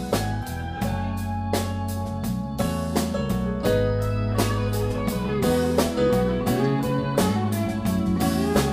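Live rock band playing an instrumental passage: electric guitar and bass guitar over a drum kit keeping a steady beat.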